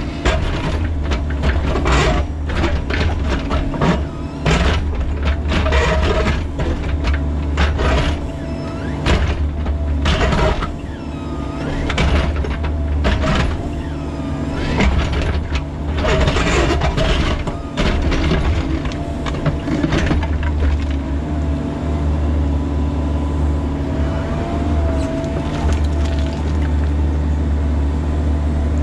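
Bobcat E45 mini excavator's diesel engine running under hydraulic load while the bucket digs in a rocky trench, with repeated scraping and knocking of steel on rock. After about twenty seconds the knocks stop and the engine and a hydraulic whine run steadier as the arm swings.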